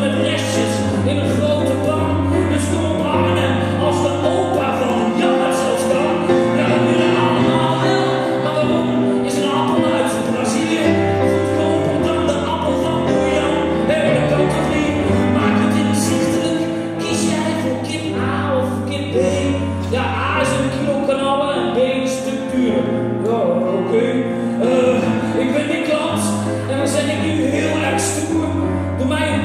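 A man singing into a microphone while accompanying himself on a grand piano, with held chords under his voice.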